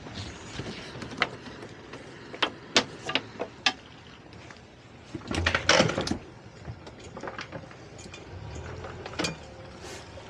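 Scattered sharp knocks and clunks of gear being handled aboard a boat, with a louder clattering cluster about five to six seconds in.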